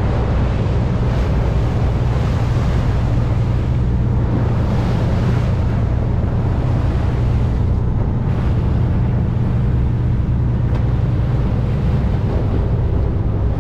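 Fishing boat's engine running steadily under way, a constant low hum, with water rushing along the hull and wind on the microphone.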